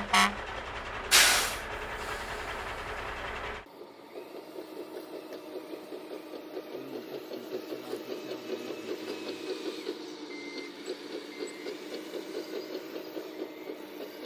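RC construction truck with a sound module, playing a sharp air-brake-like hiss about a second in. After an abrupt cut it plays a rhythmic, fast-pulsing diesel engine sound, with short high reversing beeps about a second apart near the end.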